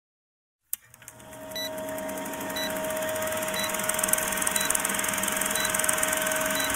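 Old film-projector countdown sound effect: after a click about a second in, a projector's steady whirring and rattle fades up, with a faint short beep about once a second.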